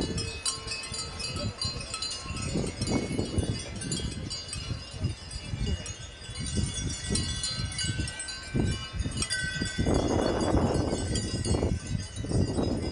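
Many faint, high chiming tones ringing at random over wind buffeting the microphone, with a louder rush of noise about ten seconds in.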